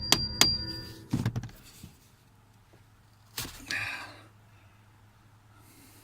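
Hammer blows, about three a second with a high metallic ring, knocking at the ignition lock cylinder of a 2014 Subaru Impreza; they stop within the first second. A dull thunk follows a moment later, and about three and a half seconds in comes a single sharp knock with a short rattle.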